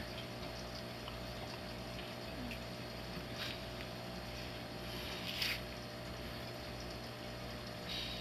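Steady low hum of a small water pump with faint trickling water, broken by brief soft rustles about three and a half and five and a half seconds in.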